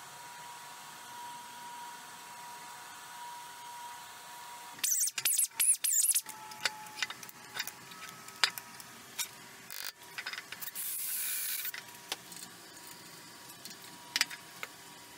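Handling sounds from a resin-and-wood casting being worked on the bench. A loud rustling burst comes about five seconds in, then scattered clicks and knocks, with a short hiss near eleven seconds, over a faint steady hum.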